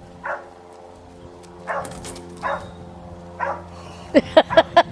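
A dog barking: a few single barks spaced about a second apart, then a quick run of about five loud barks near the end.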